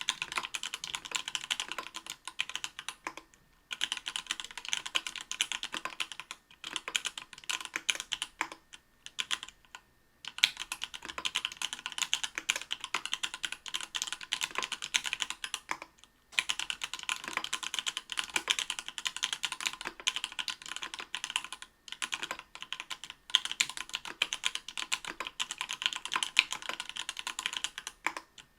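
Fast typing on a mechanical keyboard with stock, unlubed Everglide Coral Red 67g linear switches in an aluminium-plate Octagon V3 with GMK keycaps: a quick, continuous run of keystroke clacks, broken by short pauses a few times.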